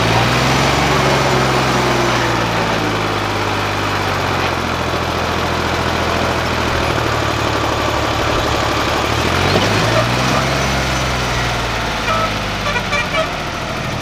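John Deere tractor's diesel engine working hard under heavy load, pulling a trolley loaded with a road roller that is stuck in sand; the engine revs up near the start and again about two-thirds of the way through, as the front wheels lift off the ground.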